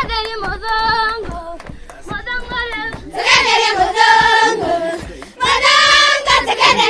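Children singing a song in high voices, with long held notes; the singing grows louder about three seconds in.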